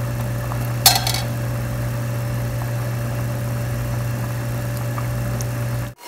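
Steady low mechanical hum, with one short metallic clink about a second in; the sound cuts off abruptly just before the end.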